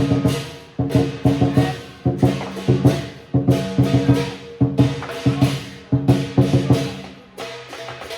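Chinese lion-dance percussion: a drum with crashing cymbals and gong playing a driving, repeating pattern of strike groups about every second, with the metal ringing on between strikes. It drops to a quieter, sparser beat near the end.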